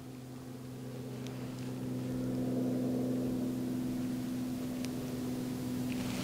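Steady low machine hum, like a motor or fan running, growing a little louder about two seconds in.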